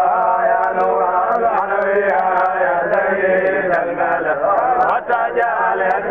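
Many men's voices chanting together in a continuous, steady devotional chant, an Islamic dhikr sung over a grave.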